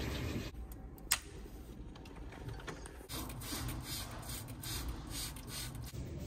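Handheld plastic spray bottle being squeezed over and over, a quick run of short hissing sprays a few times a second, with a single sharp click about a second in.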